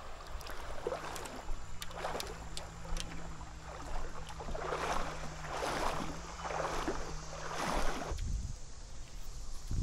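Wading through shallow river water, a splashing swish with each stride about once a second. A low rumble near the end.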